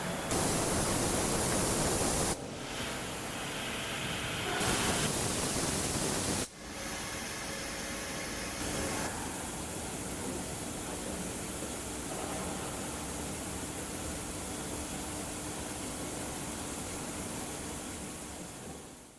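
TK35 5-axis CNC machining center cutting a bone marrow drill under coolant spray: a steady, dense hiss of spray and cutting. It is louder in two stretches near the start and changes level abruptly several times, then holds steady.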